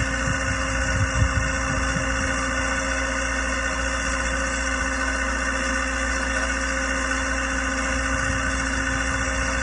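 Skid-mounted three-drum recovery winch running: a steady low engine drone with an even, unchanging whine over it, and a couple of low knocks about a second in.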